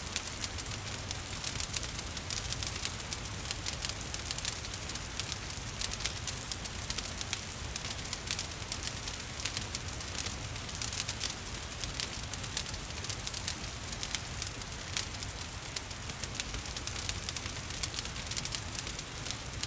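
Wood fire crackling, with frequent small sharp pops, over a steady hiss of gentle rain and a low rumble.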